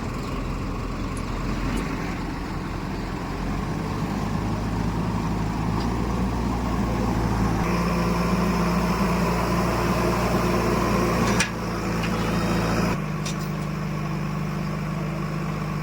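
Heavy diesel engine running, rising to a higher, louder speed from about four seconds in, then dropping back abruptly near the end.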